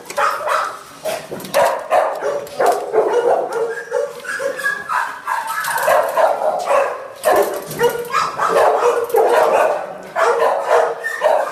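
Shelter dogs barking and yipping in the kennels, many calls overlapping in a constant din with no pause.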